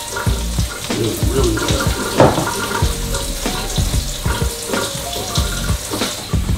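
Kitchen faucet running steadily into a sink as mushrooms are rinsed under it, with soft knocks from handling.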